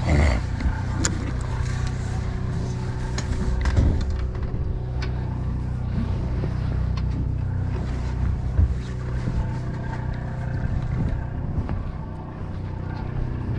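Party boat's engine running steadily with a low hum, with a few brief knocks: one at the start, one near four seconds and one near nine.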